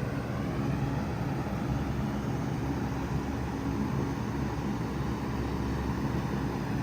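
A 5-ton Bard wall-hung heat pump running steadily in cooling mode: a constant hum from the unit under an even rush of fan air.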